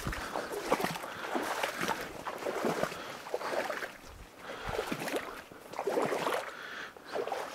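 Water splashing and reeds swishing in a shallow marsh as someone moves through it, with about one splash or stroke a second.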